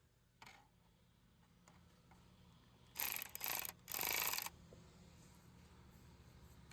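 Cordless power driver running in two short bursts, about three and four seconds in, driving T15 Torx screws. A light click comes about half a second in.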